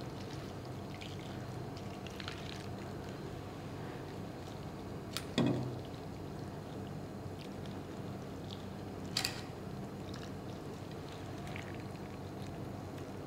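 Hot milk-and-cream mixture being poured over baked phyllo squares in small ramekins. A knock about halfway through and a lighter click a few seconds later.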